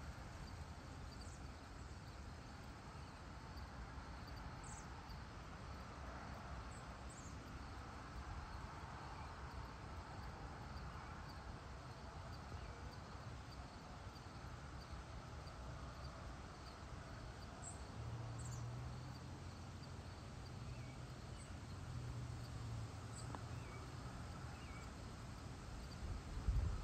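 Faint dusk farm ambience: crickets and other insects chirping steadily, with a few short, high, falling chirps now and then over a low rumble. A low hum comes in for a few seconds about two-thirds of the way through.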